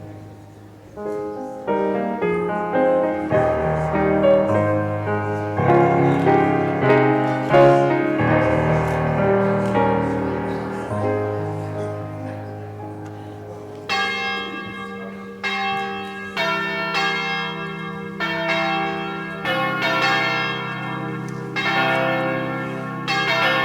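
Prelude music: keyboard chords over held bass notes. About fourteen seconds in come struck bell tones, roughly one a second, ringing out over a held low chord.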